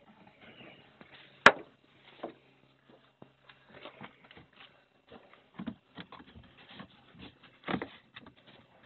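A van's interior trim panel and its clips being handled: one sharp loud click about a second and a half in, then scattered light knocks and rustles.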